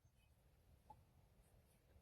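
Near silence: a faint low rumble with one small tick about a second in.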